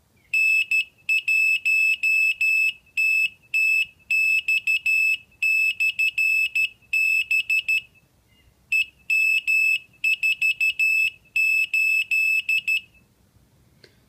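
Homemade automatic Morse code beacon keyer beeping out its message in Morse code: a single high steady tone keyed into dots and dashes for about twelve seconds, with a short break near the middle. This is one pass of a beacon message that the keyer sends three times in a row.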